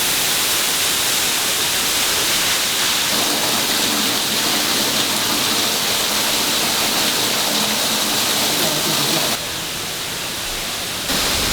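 Waterfall: a steady rush of falling water, quieter for about two seconds near the end.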